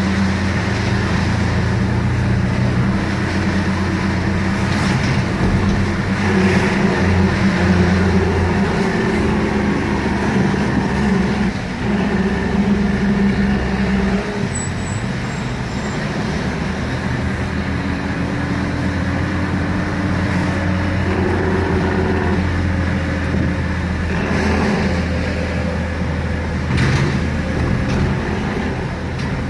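Steady low engine drone with road noise, heard from inside a car driving closely behind a 1985 International Eagle dump truck. The drone steps in pitch a few times as the vehicles change speed.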